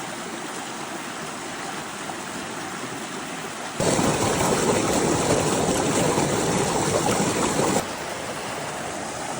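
Mountain creek flowing over rocks, a steady rush of water. About four seconds in it turns louder and fuller for about four seconds, then drops back abruptly.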